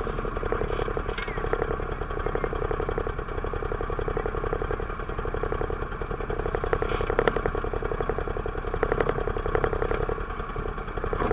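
A new ATV engine idling steadily while being broken in, with a few sharp clicks around the middle.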